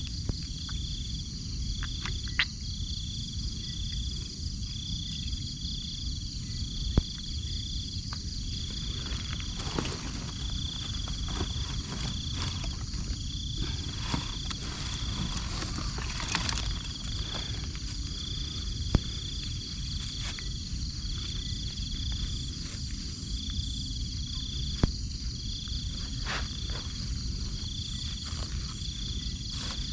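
Crickets chirping steadily: short high chirps, often in pairs, repeating through the whole stretch over a continuous higher insect trill. Beneath them runs a low rumble, with a few sharp clicks of handling.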